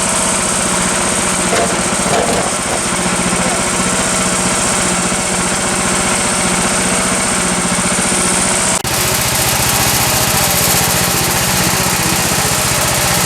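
Small gasoline engine of a Woodland Mills HM126 bandsaw sawmill running steadily at working speed. There is a sudden brief break about nine seconds in, after which the high hiss drops out and the engine runs on.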